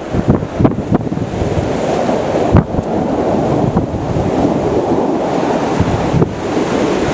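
Strong wind buffeting the microphone: a loud, continuous low rumble with irregular gusty thumps, the wind noise the recording is troubled by.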